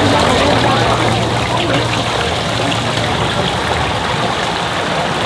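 Hot oil in a deep fryer sizzling steadily with a fine, dense crackle as pieces of stinky tofu fry in it.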